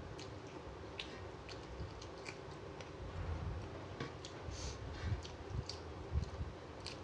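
Chewing with wet mouth clicks as a man eats rice by hand, with irregular small clicks of his fingers picking grains off a bell-metal plate.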